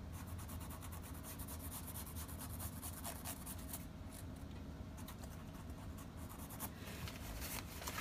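Black Sharpie marker scratching in short repeated strokes on neoprene fabric, inking over green that shows at a seam. Faint, over a steady low hum.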